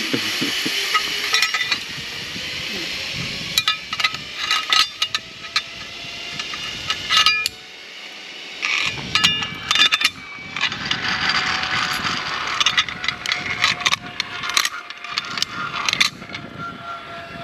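Metal zipline gear: carabiners and trolley clinking and rattling against the steel cable, then a zipline trolley's pulleys running along the cable with a steady hiss and a faint, slowly falling whine in the second half.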